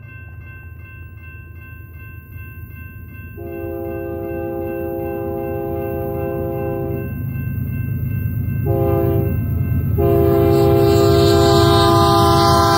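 Diesel locomotive horn of a BNSF ES44C4 sounding the grade-crossing signal as the train approaches: a long blast, a short one, then a final long blast that begins near the end. Under it the locomotives' rumble grows steadily louder, and a crossing bell rings throughout.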